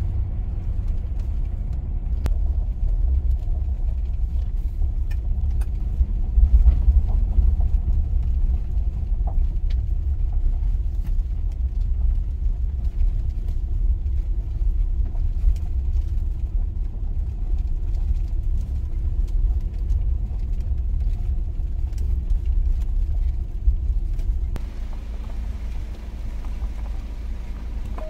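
Car driving slowly: a steady low rumble of engine and tyres that eases off a little near the end.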